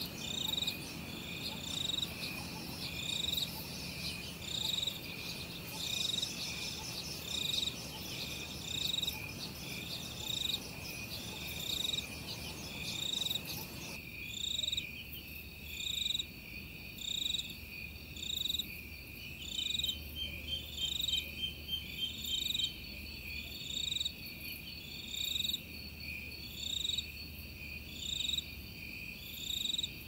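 Outdoor nature ambience: a steady high-pitched drone with short high chirps repeating about once a second, and a few faster trills in between.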